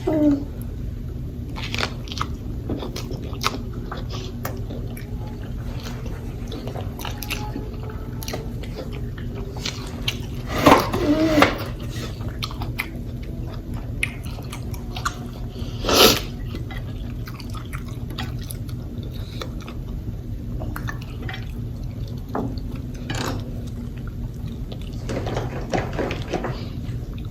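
Close-miked chewing and wet lip-smacking of a fried chicken sandwich in spicy sauce, heard as many small scattered clicks over a steady low hum. There is a louder voiced 'mm'-like sound about eleven seconds in and another loud burst at about sixteen seconds.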